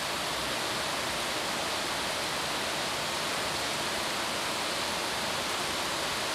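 A steady, even hiss with no other sound, not changing at all.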